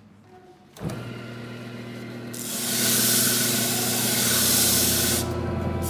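Sandpaper hissing against a wooden baseball bat spinning on a wood lathe, a steady loud hiss for about three seconds in the middle.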